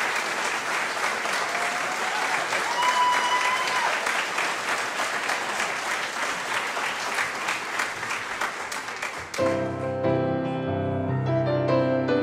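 Audience applauding, with a brief cheer about three seconds in. The clapping cuts off abruptly about nine seconds in and a piano begins playing an introduction of sustained notes and chords.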